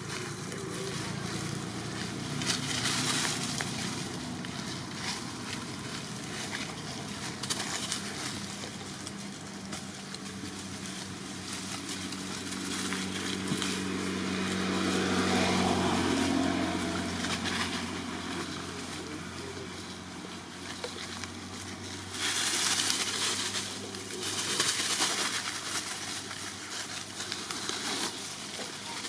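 Dry fallen leaves rustling and crackling as monkeys move over them, over a low steady hum.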